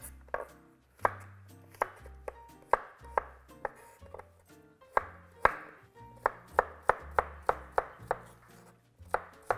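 Chef's knife chopping a zucchini into cubes on a wooden cutting board: a series of sharp knocks, spaced out at first and quicker, about three a second, in the second half.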